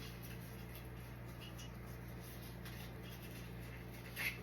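Quiet room with a steady low electrical hum and faint handling noise, with one short rustle just after four seconds in.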